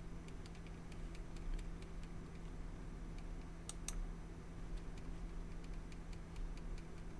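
Faint, scattered computer mouse clicks, with a sharper double click about halfway through, over a steady low electrical hum.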